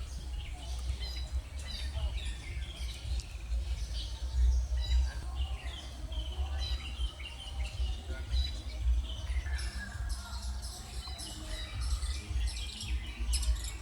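Many birds chirping and twittering, with short overlapping calls throughout and a busier burst of sharp high calls from about ten seconds in. A low rumble runs underneath.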